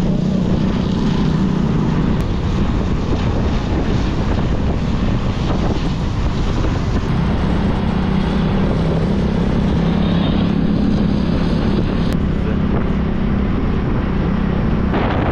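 Small motorbike engine running steadily under way, with wind rushing over the microphone.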